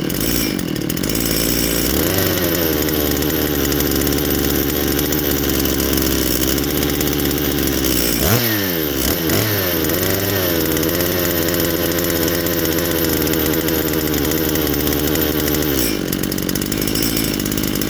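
Big-bore-kitted Makita DCS7901 two-stroke chainsaw engine running on its first start after a rebuild, running rich. Its speed holds mostly steady, dips sharply about eight seconds in and picks back up, and shifts again near the end.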